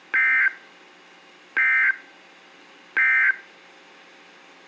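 Three short bursts of Emergency Alert System (SAME) digital data tones, each about a third of a second long and about a second and a half apart. This is the end-of-message code that closes the tornado warning broadcast.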